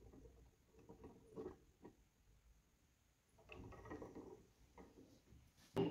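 Faint scattered clicks and rubbing from a hand handling a plastic gear model, with one sharper click near the end.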